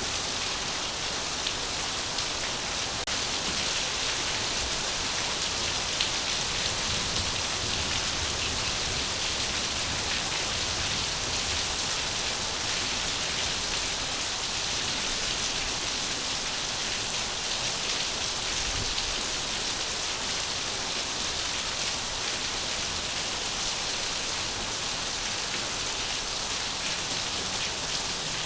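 Steady rain falling, a continuous even hiss of water with no breaks.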